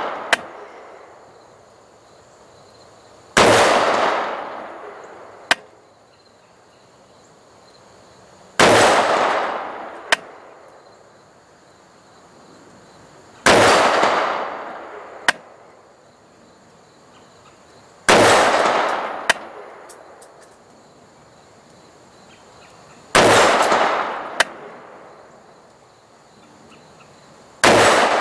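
Six rifle shots of slow aimed fire from an AR-style semi-automatic rifle, about one every five seconds, each report trailing off over a second or so. About two seconds after each shot comes a short sharp tick.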